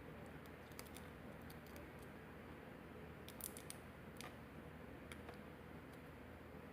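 Faint small metallic clicks and scrapes of a thin shim being worked into the gap of a lock cylinder. A brief cluster of clicks comes about three and a half seconds in.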